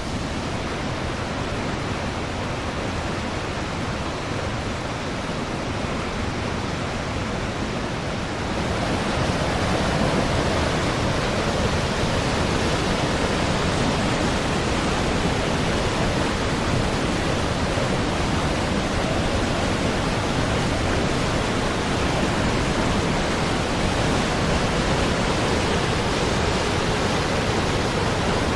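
Mistaya River rushing through its rock canyon: a steady noise of fast water, which grows a little louder about eight seconds in.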